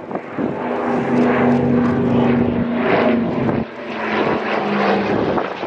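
Douglas DC-3 with its twin radial piston engines and propellers running steadily as it flies past, a deep, even engine drone. The sound dips sharply about two-thirds of the way through, then carries on a little quieter.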